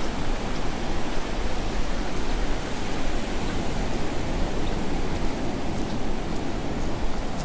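Ocean surf washing up over wet sand with waves breaking just beyond: a steady rush of water, with a few faint crackling ticks.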